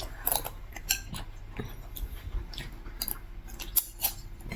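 Cutlery clinking and scraping on a dinner plate during a meal, a few sharp clinks among softer scrapes.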